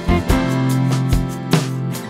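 Background music: a song with guitar over drum hits.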